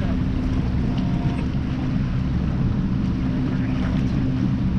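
Wind buffeting the microphone and choppy water rushing past a sailboat's hull as it runs downwind in storm winds, over a steady low hum.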